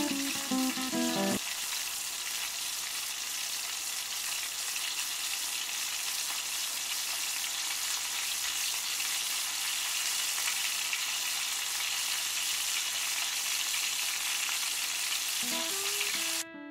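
Flour-dredged pollock fillets frying in hot oil in a pan: a steady sizzle. Guitar music plays for the first second or so and comes back just before the end.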